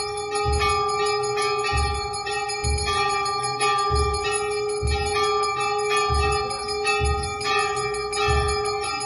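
Temple bells ringing on and on, their ringing tones held steady without dying away, over a low drum beat about once a second.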